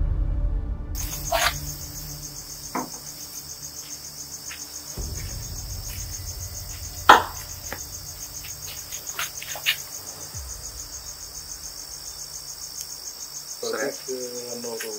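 Crickets chirping in a steady night chorus, with a few sharp clicks or knocks scattered through it; the loudest comes about seven seconds in.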